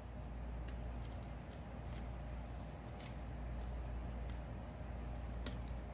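A plastic light pad stand being handled and worked, giving scattered faint clicks and rustles, over a steady low hum.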